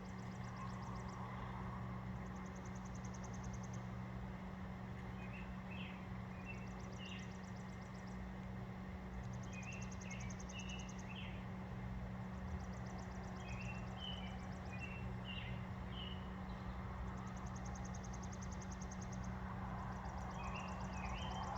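Microwave oven running with a steady low electrical hum. Birds chirp now and then, and a high trill comes in short bursts every several seconds.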